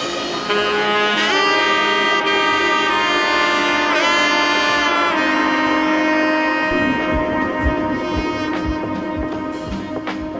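Background music: held brass or saxophone notes with a few sliding notes, and a beat coming in near the end.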